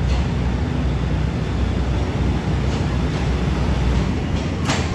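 Two-car diesel railcar rolling slowly into a station platform: a steady low diesel rumble with wheel-on-rail noise, and one sharp click near the end.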